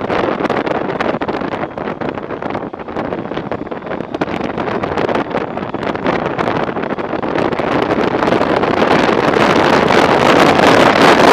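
Wind buffeting the camera microphone on a moving Honda ST1300 motorcycle, with road and engine noise underneath; it grows louder through the second half as the bike picks up speed.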